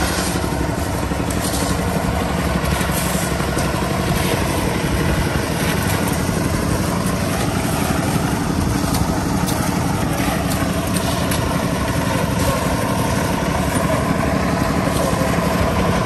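Small engine of concrete-pouring machinery running steadily at a constant speed, with a few short scrapes on top.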